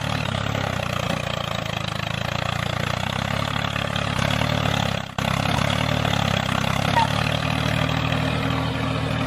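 Diesel tractor engine running steadily at a low idle-like speed, with a brief break about five seconds in.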